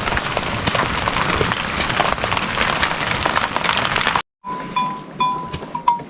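Steady rain with a dense patter of drops, which cuts off abruptly about four seconds in. It is followed by livestock neck bells clanking with a clear ringing tone, four or five strikes.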